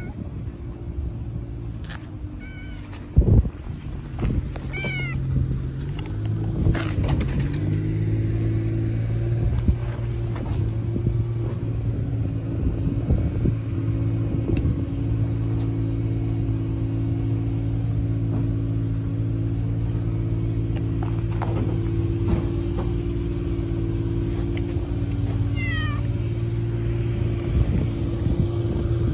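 A tabby-and-white cat gives a few short meows, near the start, a couple around two to five seconds in, and one near the end, over a steady engine hum. A sharp knock about three seconds in.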